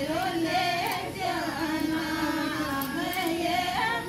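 Women singing a traditional Shekhawati folk song in long, drawn-out melodic lines.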